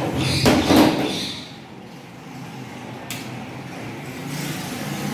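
A door being opened: a loud rattling scrape about half a second in, then a single sharp click about three seconds in.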